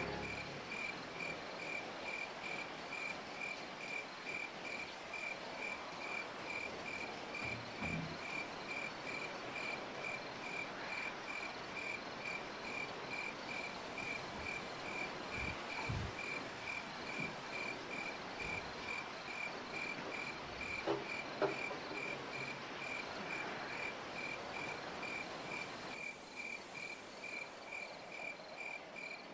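Crickets chirping steadily at night in an even, regular pulse. A few faint knocks sound over it, the clearest about two-thirds of the way through.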